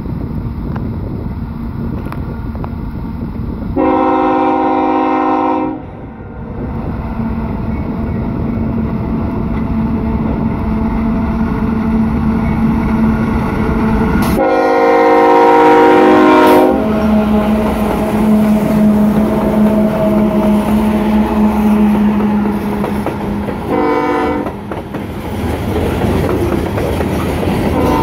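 CSX diesel locomotives leading a loaded coal train blow their multi-note air horn three times, two long blasts and then a short one, the opening of a grade-crossing signal, as the train approaches and passes. Under the horn is the steady rumble of the locomotives and the loaded coal hoppers rolling by on the rails.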